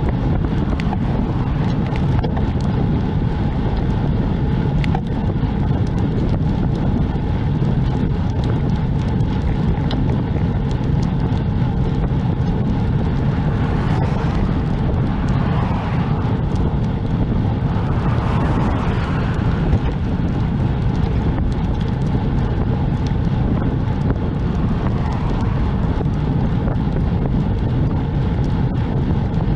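Steady wind rumble on a camera microphone while riding a bicycle along a road, with road traffic going by; two passing vehicles swell up and fade about halfway through.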